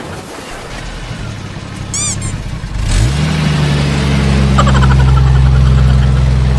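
Dubbed engine sound effect for a toy lorry: a deep vehicle engine comes in about three seconds in, rising briefly and then running steadily, after a few seconds of hissy noise with a short high chirp. It cuts off abruptly.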